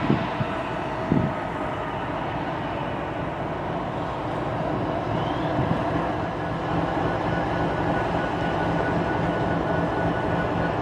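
Diesel locomotives of an approaching freight train running: a steady engine drone that grows a little louder, with a steady hum coming in about six seconds in. Two dull thumps in the first second or so.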